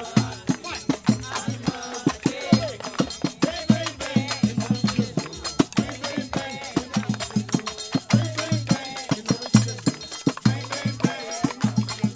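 Upbeat music with a fast, steady percussion beat and bass notes under a melody line.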